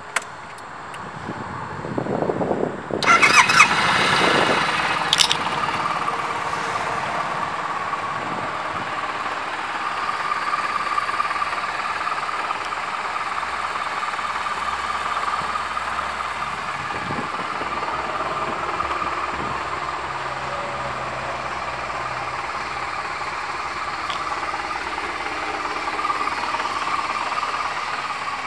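Suzuki Burgman 650's parallel-twin engine cranked on the electric starter, catching about three seconds in with a loud flare, then settling into a steady idle.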